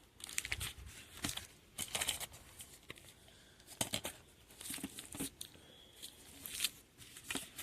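Plastic packaging of a dinnerware set being handled, with scattered crinkles, rustles and small taps.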